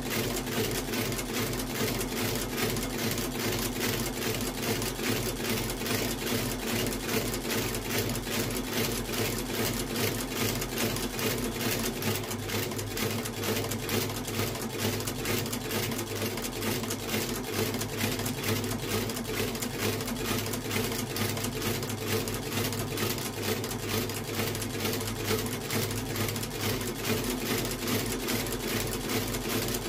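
Outsole stitching machine running steadily, its needle and awl stitching a leather sole to the welt of a shoe through the original stitch holes. It gives a rapid, even clatter over a steady motor hum.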